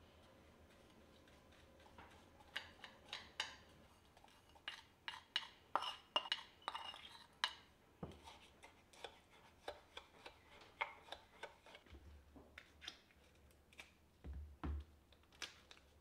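A wooden spoon stirring sugar into a liquid in a glass Pyrex measuring jug, clinking and knocking against the glass in irregular clicks that come thickest a few seconds in and thin out later. A couple of dull thumps near the end.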